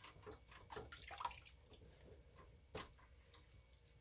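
Near silence with faint drips and small clicks of cold process soap batter being handled and poured in mixing cups.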